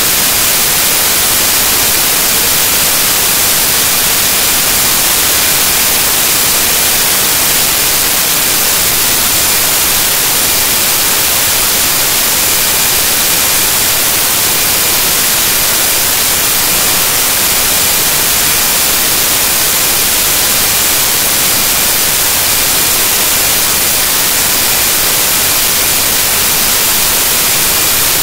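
Loud, unchanging static hiss, strongest in the high frequencies, with a few faint steady tones under it: the noise of corrupted audio data.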